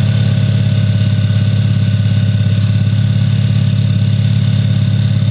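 Kia Optima's four-cylinder engine idling steadily at an even pitch, running so the fresh coolant circulates and trapped air can be bled from the cooling system.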